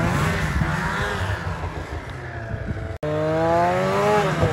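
Polaris Switchback 700 snowmobile's two-stroke engine revving as it pulls away and fades. After a sudden cut about three seconds in, it is heard close again, its pitch rising and then easing off.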